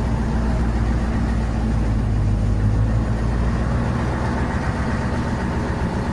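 Engine of an open-sided river tour boat running steadily, a low even drone with a rushing hiss over it.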